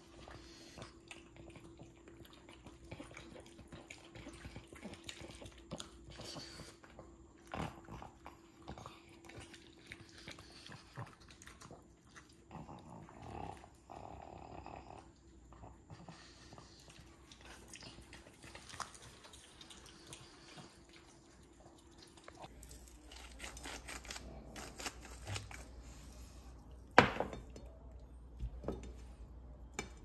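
A pug crunching dry kibble, with small clicks against its raised ceramic bowl, over a faint steady hum. Near the end the sound changes to kitchen counter noises, with one sharp clink of dishes.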